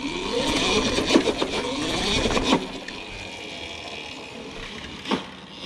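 Cake electric dirt bike riding up stone steps: a motor whine rising in pitch as it pulls, with sharp knocks as the wheels hit the steps, the loudest about one and two and a half seconds in. It then runs on more quietly, with one more knock near the end.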